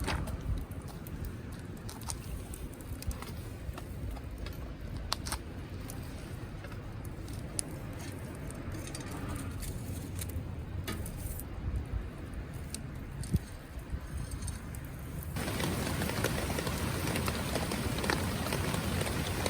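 Wood campfire crackling: scattered sharp pops and snaps over a low rumble. About fifteen seconds in, the sound cuts abruptly to a louder, even hiss.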